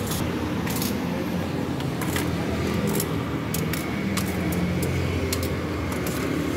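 Sharp metallic clicks of steel tongs knocking against an aluminium noodle pot as noodles are lifted and stirred in boiling water, over a steady low rumble.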